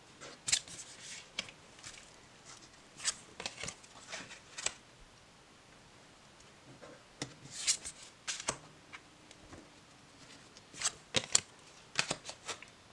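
Tarot cards being handled and rearranged: crisp card snaps and rustles in four short spells, with quiet pauses between.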